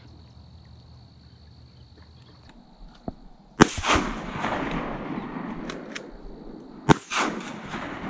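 Two shotgun shots about three seconds apart, each a sharp crack followed by a long echoing tail.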